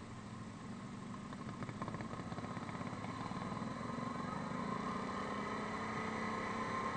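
Yamaha Grizzly 550 ATV's single-cylinder engine running under way, getting louder over the first few seconds as it picks up speed and then holding steady.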